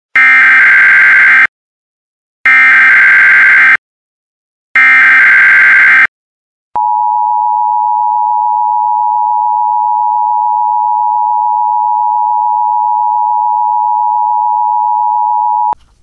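Emergency Alert System broadcast tones: three short digital data bursts (the SAME header), each about a second and a half long with a one-second gap between them, followed by the steady two-tone attention signal held for about nine seconds, which ends abruptly near the end.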